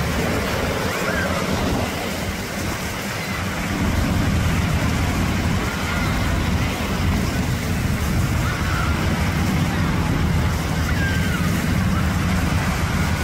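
Black Hawk helicopter flying low past, a steady low rotor-and-engine drone that grows louder about four seconds in, over surf and the voices of people in the water.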